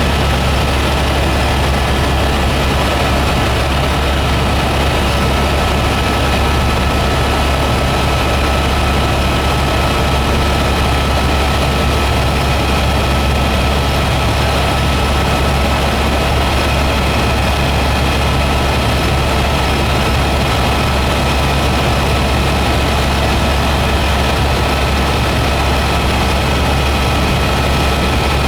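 Helicopter in flight, heard from on board: a constant low drone from the rotor and engine with a few steady high tones over it.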